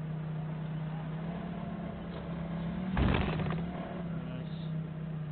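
Forklift engine running steadily at raised revs, with a loud clunk about three seconds in as the truck and its load jolt. The engine note drops near the end.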